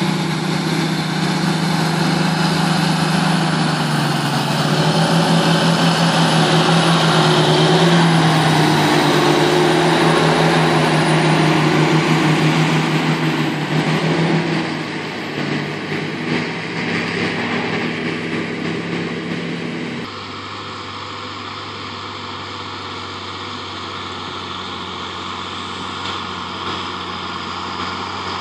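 A John Deere tractor's diesel engine running under load as it pulls a silage trailer close by, rising to its loudest about a third of the way in and then easing off. About two-thirds of the way through the sound cuts abruptly to a quieter, steady engine hum from a tractor further away.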